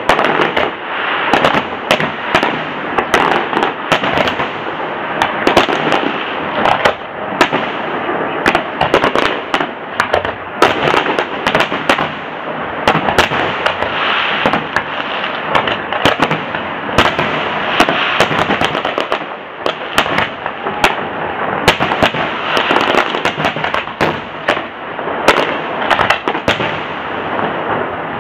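Fireworks display: many sharp bangs from bursting shells, coming thick and fast over a continuous crackling din.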